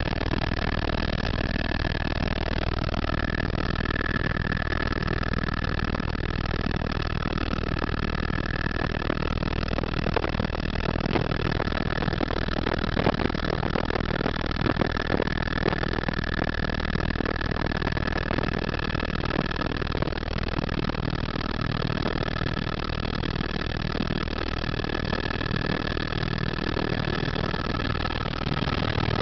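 Cabin noise of an AS350 A-Star helicopter in cruise flight: a steady high turbine whine over a dense, even rumble of rotor and airflow noise.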